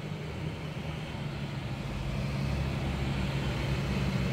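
Utility pickup truck's engine running steadily under load, its hum slowly getting louder as the truck pulls forward and takes up the slack in a tow strap.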